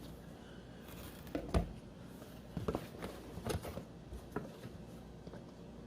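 Packaging being handled as a solar motion-sensor light is pulled out of its cardboard box: scattered short knocks and rustles, the sharpest about a second and a half in.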